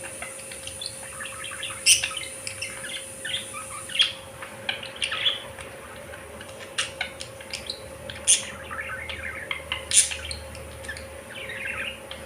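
A flock of budgerigars chirping and chattering continuously, with short, irregular chirps and a few louder sharp calls.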